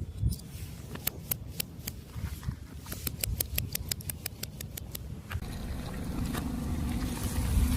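A rapid series of sharp cracks and snaps as crunchy objects break under a car tyre, over a low rumble from the car. Near the end the cracking stops and a steadier car noise builds.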